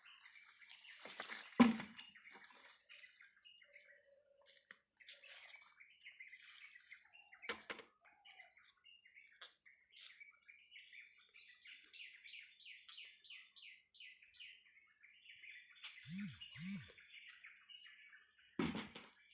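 Small birds chirping and tweeting in short calls, with a quick run of about ten repeated notes past the middle. A few sharp knocks cut in, the loudest about a second and a half in and another near the end.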